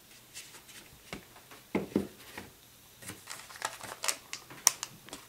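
Handling of a vinyl LP's cardboard jacket and paper sleeve: a series of irregular rustles, scrapes and clicks as the album is turned over and the record drawn out.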